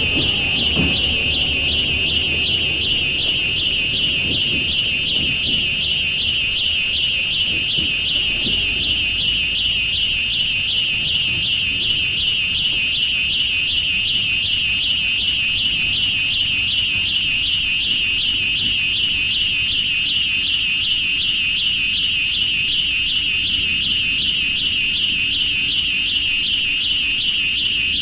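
A loud, high-pitched warbling tone, steady and alarm-like, held without a break over a low rumble of railroad sound. A few falling pitch glides in the rumble fade out just after the start.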